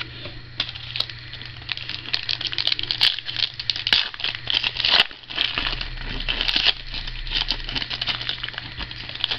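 Foil trading-card pack being torn open and crinkled in the hands: a dense, continuous run of crackles.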